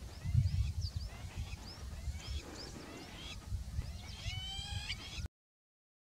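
Bird calls: a string of short chirps, about two a second, with a longer, harsher call near the end, over a low rumble. The sound cuts off suddenly about five seconds in.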